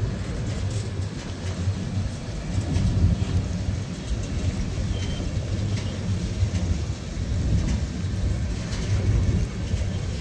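Freight train cars (boxcars and covered hoppers) rolling past: a steady low rumble of steel wheels on rail, with faint occasional clicks.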